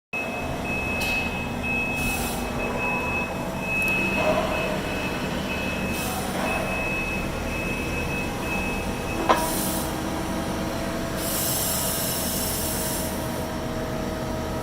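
Ficep Excalibur 12 CNC beam drill line running: a steady machinery hum with an intermittent high-pitched beeping for the first nine seconds. Short bursts of hissing come and go, and there is a sharp clank about nine seconds in.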